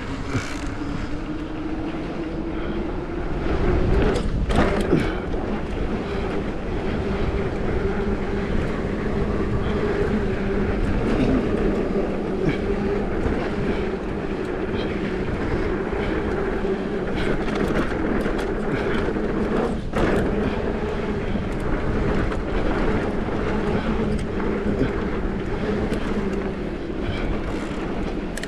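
Mountain bike rolling fast down a dirt trail: knobby tyres on dirt, the bike rattling over bumps, with a steady hum and a few sharp knocks from hits along the way.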